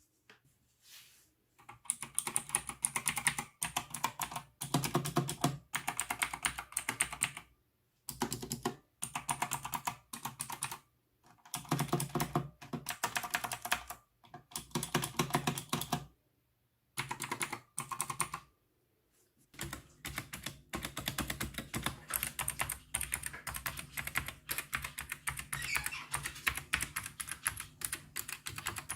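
Typing on a mechanical keyboard: quick runs of keystrokes broken by short pauses, then steady continuous typing for the last third.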